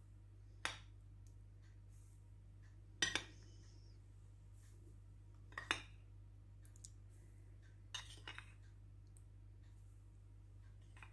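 A tablespoon clinking against the mixing bowl as spoonfuls of dry ingredients go onto the whipped egg mixture: four short clinks a couple of seconds apart, the last a quick cluster of two or three, over a faint low hum.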